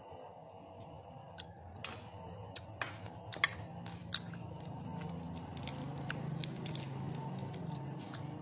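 Crisp lechon (roast pig) skin and meat being torn apart by hand and bitten, giving irregular sharp crackles and crunches, close to the microphone.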